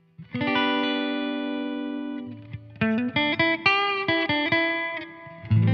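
Harley Benton Fusion HSH II Pro electric guitar on its middle Seymour Duncan SSL7 single-coil pickup, played through a Boss Katana amp: a chord rung out for about two seconds, a quick run of single notes, then another chord struck near the end.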